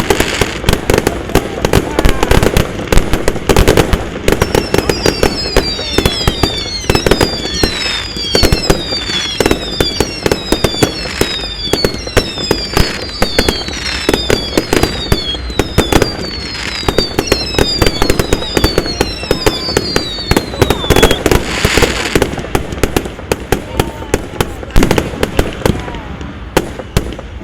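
Fireworks going off in a rapid run of cracks and bangs. From about four seconds in until about twenty-one seconds, many whistles fall in pitch one after another over the crackling, then the crackling carries on alone.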